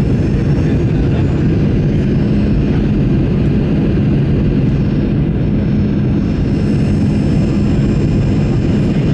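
Steady cabin noise inside a Boeing 737-900ER in flight: its CFM56 jet engines and the rush of air over the fuselage make a constant low drone with a steady hum, at an even level throughout.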